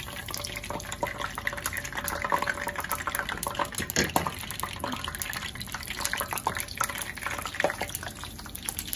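Tortillas frying in hot oil in a skillet, a steady crackling sizzle with many small pops. A sharper knock stands out about four seconds in.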